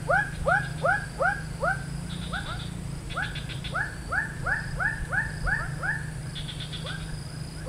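An animal calling in a rapid series of short calls, each dropping in pitch, about two to three a second, thinning out twice along the way. Brief high buzzing sounds come and go, over a steady low hum.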